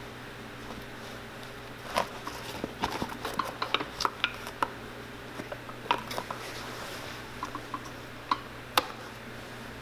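Irregular light taps and clicks of hand work on a shoe, tools and the shoe being handled, over a steady low hum. The taps bunch up from about two seconds in, and two sharper knocks come near the end.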